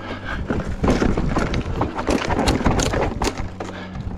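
Electric mountain bike clattering down a rocky trail: quick, irregular knocks and rattles as the tyres and suspension hit rocks and steps. A low, steady hum comes and goes under the knocks.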